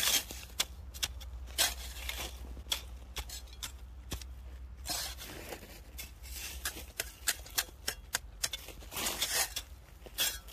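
Small folding shovel digging into and tossing snow: a run of irregular crisp crunches and scrapes as the blade cuts in and snow lands, with a couple of longer scraping strokes.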